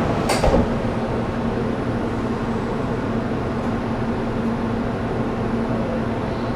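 A sliding door on an 800 series Shinkansen car shuts with a short thump about half a second in. After it comes the stopped train's steady hum and air noise, with a low constant tone.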